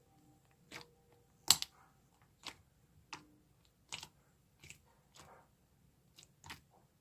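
A series of irregular sharp clicks and pops, about a dozen, the loudest about a second and a half in.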